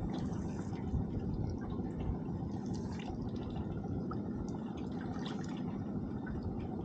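Sea water lapping and lightly splashing at the side of a small boat, with scattered drips and small splashes over a steady low rumble.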